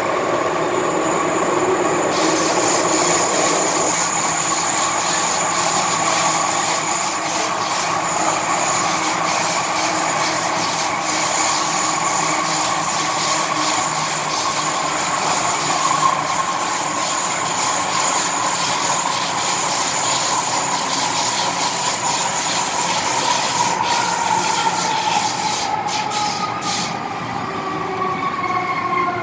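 MTR M-Train electric multiple unit running, heard from inside a passenger car by the doors: a steady rumble and rush of wheels on rail with a whine running through it. Near the end, several whines slide down in pitch.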